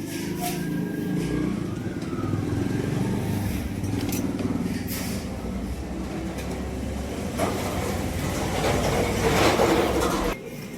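Small chainsaw engine running steadily, getting louder and harsher towards the end, then cutting off suddenly.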